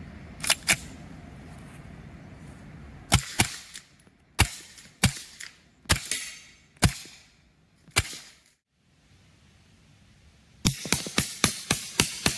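A Colt 1911 .45 pistol fitted with a SilencerCo Octane 45 suppressor. It opens with two quick metallic clicks as the slide is racked, then fires six suppressed shots about a second apart, each a sharp muffled crack with the slide cycling. Near the end there is a fast run of about eight sharp cracks in quick succession.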